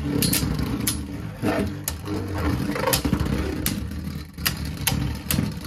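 Two Beyblade Burst tops, Lightning Pandora and Bellfire, spinning against each other in a plastic stadium: a steady whirring hum, broken by a dozen or so sharp, irregular clacks as the tops strike each other and the stadium.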